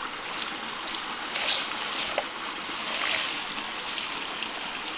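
Creek water rushing steadily. A thin high whine comes and goes over it.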